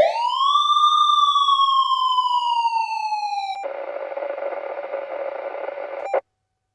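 A single siren wail sound effect: it rises quickly, then slowly falls in pitch. About three and a half seconds in it gives way to a stretch of tinny static that ends with a click.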